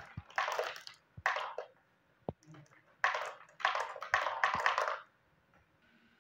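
Glass marbles rolling and clattering along a wooden wavy-groove marble track. The clattering comes in bursts of about a second, with a few sharp knocks as marbles drop onto the wood.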